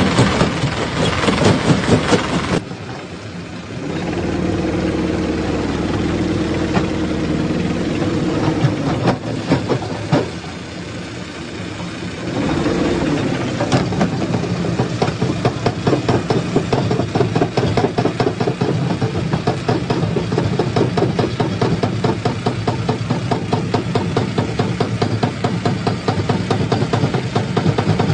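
Stone crushing machinery running: a heavy engine's drone under dense, rapid rattling and knocking of rock being crushed. The sound changes abruptly about three seconds in to a steadier engine drone. Around twelve seconds in the engine rises in pitch and the rattling returns.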